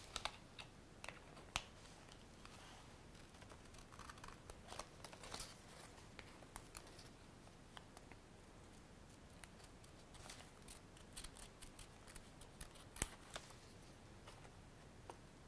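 Small scissors snipping folded paper: quiet, irregular short snips with a few sharper clicks, the loudest about a second and a half in and again late on.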